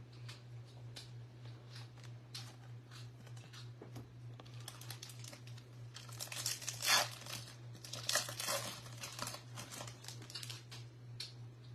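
Trading cards being handled with light clicks, then a Bowman baseball card pack's foil wrapper crinkling and tearing open for several seconds, loudest a little past the middle.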